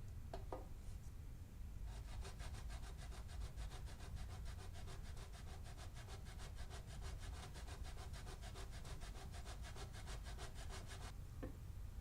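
Rhythmic scraping strokes, about five a second, starting about two seconds in and stopping about a second before the end, with a short knock just before they begin and another after they stop.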